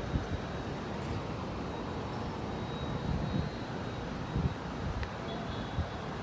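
Steady city ambience heard from high above the street in the rain: an even wash of rain and distant traffic, with uneven low gusts of wind buffeting the microphone.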